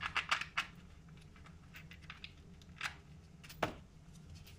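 Quiet workbench handling noises: a quick run of clicks and rustles at the start, then two single clicks about three and three and a half seconds in, as gloved hands handle a paper gasket, an aluminium intake manifold with its screws, and a crinkly plastic sheet.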